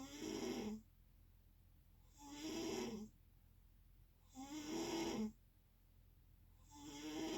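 Snoring in a steady rhythm: four snores, one about every two seconds, each a pitched, buzzy breath with quiet gaps between.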